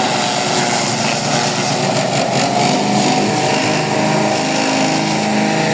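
Forage chopper driven by a 7.5 hp petrol engine, running steadily at speed while its three-blade cutter chops fodder.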